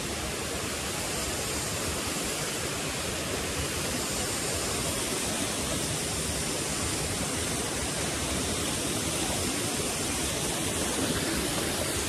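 Steady rushing of a mountain stream, an even wash of water noise.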